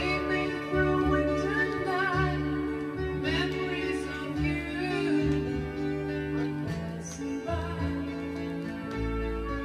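Cassette playback on a restored Tandberg TCD 440A deck: a song with a woman singing over instrumental backing.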